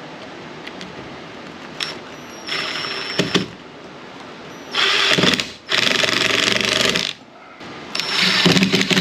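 A handheld power tool's motor running in bursts: a short run, then a longer one that dips briefly, then another starting near the end.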